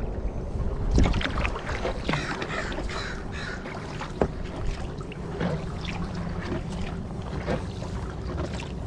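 Birds calling over the splash and drip of a kayak paddle, with wind rumbling on the microphone.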